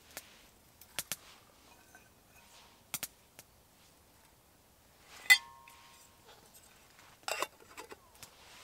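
Metal camping mugs and a lid clinking as they are handled on a tree stump: a handful of sharp clinks, the loudest about five seconds in, leaving a brief metallic ring, and a quick cluster of knocks near the end.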